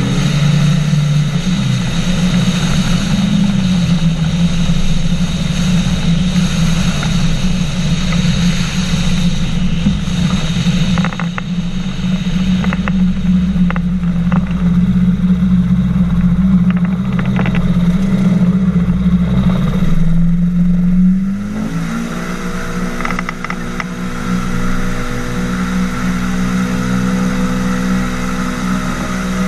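Engine and pusher propeller of a flying inflatable boat running steadily at a loud, even pitch. About twenty seconds in, the engine note rises in pitch and the sound gets somewhat quieter, then holds steady as the boat runs along the water.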